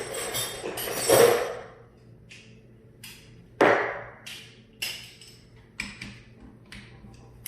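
Metal hand tools being handled: a jumble of clattering for the first second and a half, a loud clank about three and a half seconds in, then four or five short sharp clinks, as sockets are sorted and fitted to a bolt.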